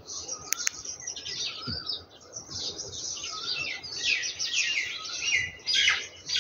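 Many small birds chirping in a dense chorus of quick, falling twitters, growing busier toward the end, with two sharp clicks about half a second in.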